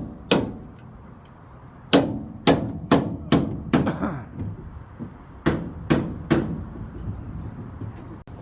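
Hammer blows: one strike near the start, a run of five about every 0.4 s around the two-to-four-second mark, then three more a few seconds later.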